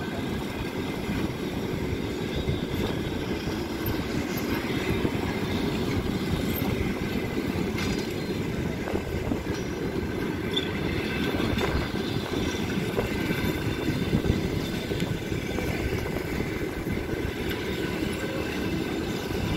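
Russian Railways passenger coaches rolling past the platform, a steady rumble of wheels on the rails.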